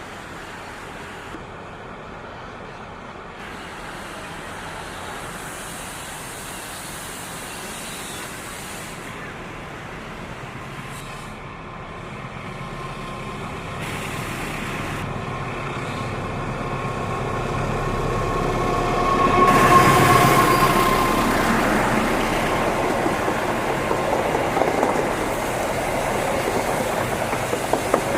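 Diesel-hauled passenger train approaching and passing, its locomotive horn sounding three times as a chord of steady tones. The engine and wheel noise grow louder and peak about twenty seconds in as the locomotive goes by, then the carriages roll past on the rails.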